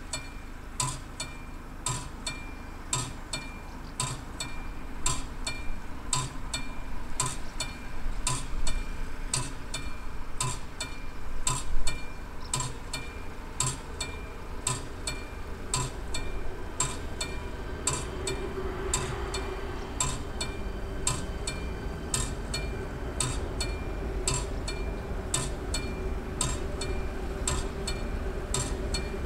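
Level-crossing warning bell, the classic mechanical striker bell of an AŽD 71 crossing, striking in an even, steady rhythm, each stroke ringing briefly, as the crossing signals that a train is coming. A low steady hum joins in from about halfway, and there is one louder knock a little before halfway.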